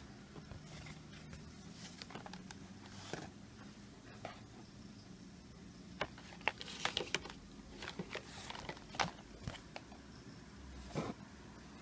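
Handling noise from a cardboard coin folder being moved about: scattered light rustles and taps, busiest from about six to nine seconds in and again near the end.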